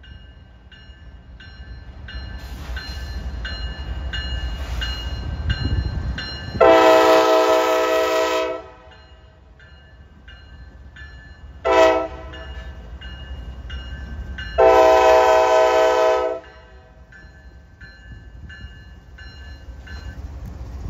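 A Norfolk Southern diesel freight locomotive's multi-chime air horn sounds a long blast, a short one and another long one, the crossing signal pattern, as the train rolls past. Under it the diesel locomotives rumble by, loudest just before the first blast, and a bell rings about twice a second.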